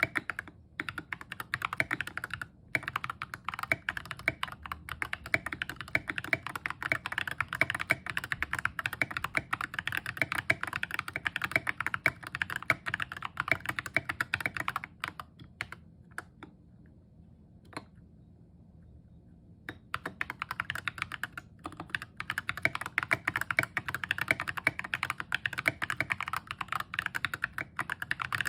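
Continuous typing on an Epomaker GK61xs mechanical keyboard with stock Ajazz Banana tactile switches, SA-profile keycaps and a tape mod: a dense run of keystroke clacks. The typing stops for a few seconds just past the middle, then resumes.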